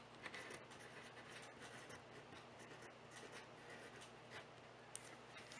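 Faint scratching of a pencil writing words on paper, with a few small ticks as the lead touches down.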